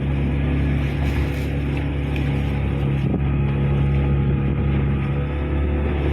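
Fishing boat's engine running steadily at an even pitch as the boat travels under way.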